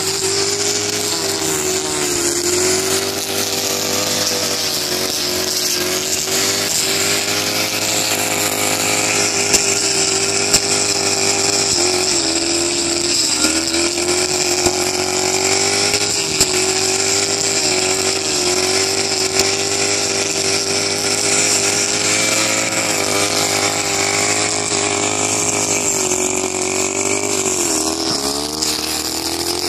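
Gasoline backpack brush cutter's engine running steadily at high speed while its blade cuts rice stubble, the pitch dipping briefly a couple of times, with a few sharp ticks.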